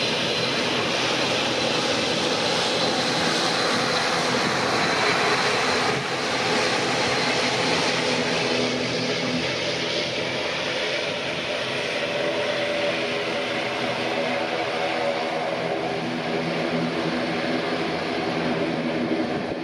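Airbus A320-232's IAE V2500 jet engines running loud and steady through the landing, with a high whine over the first several seconds that fades, and a lower drone with a few steady tones settling in for the rest.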